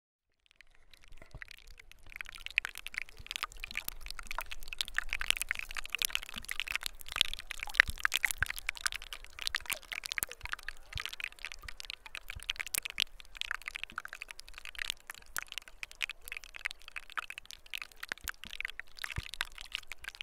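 Dense, irregular crackling and popping, many sharp little clicks close together, fading in about a second in and carrying on steadily.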